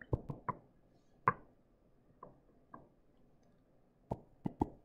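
Scattered short, sharp clicks and taps from a lecturer operating a digital whiteboard's pen tool: a quick cluster at the start, a single click about a second in, two faint ones in the middle and another quick cluster near the end.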